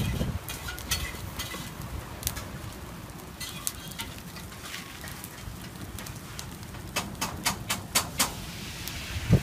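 Metal tongs clicking and scraping while handling a pan of grilled frogs, with scattered clicks and a quick run of about six near the end. A low wind rumble on the microphone runs underneath.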